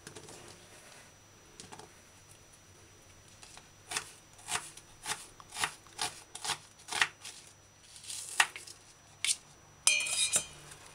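Kitchen knife cutting an onion on a plastic cutting board: about ten separate chopping knocks, roughly two a second, starting about four seconds in, followed by a brief scraping sound near the end.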